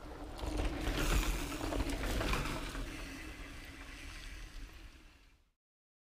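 Wind buffeting the camera's microphone, a rushing noise with low rumble that swells about half a second in, then fades and cuts off about five and a half seconds in.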